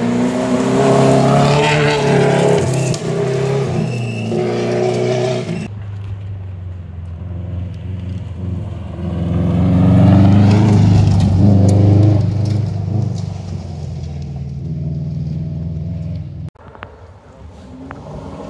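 Rally car engines revving hard on a gravel stage, pitch rising and falling with the gear changes. The loudest moment is a Subaru Impreza rally car passing close, about ten seconds in. After a sudden drop near the end, a quieter vehicle is approaching.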